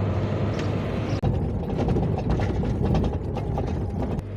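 Lada Kalina driving slowly over rough field ground: a steady low engine hum under a constant irregular clatter of knocks and rattles from the car's body and suspension, with a sharper knock a little over a second in.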